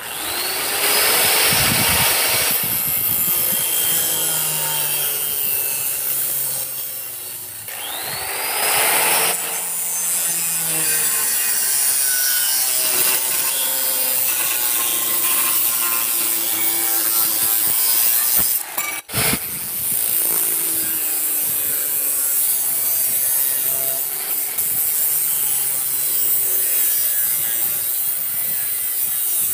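Angle grinder with a cutting disc cutting through the steel of an old circular saw blade, a loud, steady grinding hiss. The motor's whine rises as it spins up at the start and again about eight seconds in. The sound drops out for a moment about two-thirds of the way through.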